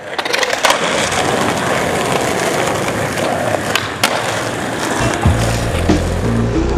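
Skateboard wheels rolling over rough pavement, with a few sharp clacks of the board. About five seconds in, a music track with a steady repeating bass line comes in over it.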